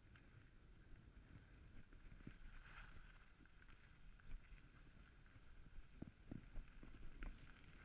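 Faint, muffled rumble of skis sliding on groomed snow, with a few light knocks and clicks near the end.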